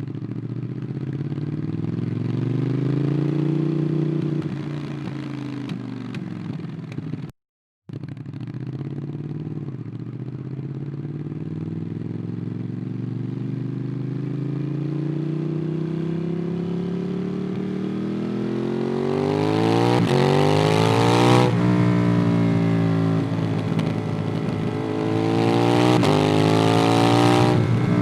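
Ducati Monster 821's L-twin engine through a QD Twin Gunshot exhaust, pulling up through the revs under acceleration: the pitch climbs steadily and then drops suddenly at a gear change, twice in the second half, after an easier rise and roll-off at the start. The sound cuts out completely for about half a second around seven seconds in.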